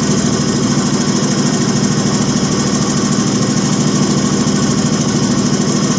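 Common-rail diesel pump test bench running steadily under test, its drive spinning a Bosch CP1 high-pressure fuel pump. The result is a loud, even machine hum that does not change.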